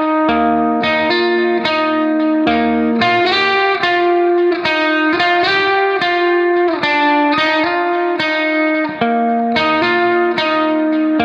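Background music: a plucked guitar melody with a steady beat.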